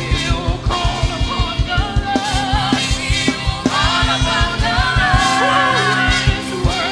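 Live gospel worship band playing an up-tempo song: a fast, steady drum beat with bass and keyboards under a lead singer's wavering, ornamented vocal line.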